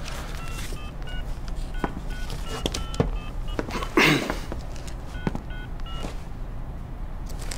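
Mobile phone keypad beeping as a phone number is dialled: about a dozen short two-tone beeps, in two runs with a short pause between. A brief rustle about four seconds in is the loudest sound.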